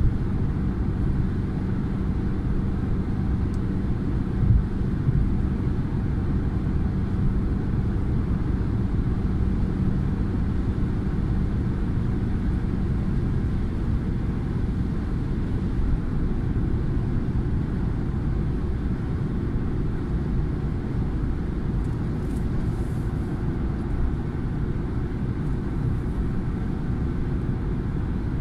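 Road noise inside a car's cabin at motorway speed: a steady low rumble of tyres and engine with a constant low hum. A brief thump about four seconds in.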